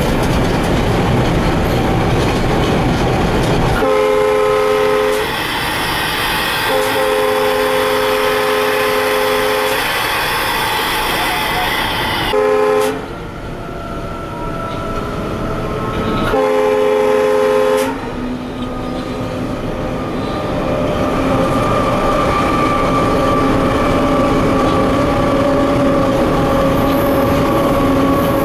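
Diesel-electric locomotive heard from inside the cab at speed: steady rail running noise. The air horn sounds four times, starting about four seconds in: a blast, a long blast, a short toot, then another blast. In the second half a steady whine builds and rises slightly in pitch as the dynamic brake is applied.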